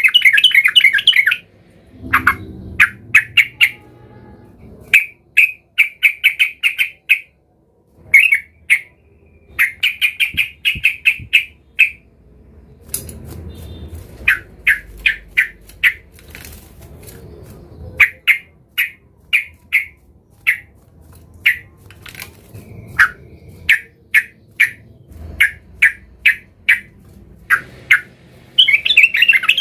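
Yellow-vented bulbul (trucukan) singing an agitated, rival-challenging song: short phrases of quick, loud notes repeated with brief pauses between them, running into a dense, continuous stretch of song near the end.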